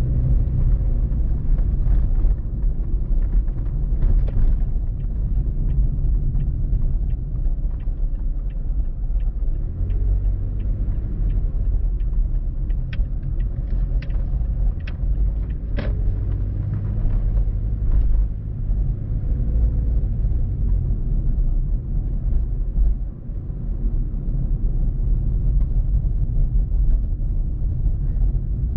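Car driving on town streets: a steady low rumble of engine and road noise, with a few light clicks in the middle.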